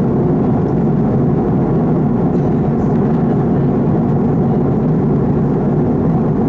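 Steady in-flight cabin noise of an Airbus A330-300: an even rush of airflow and engine hum, deep and unchanging.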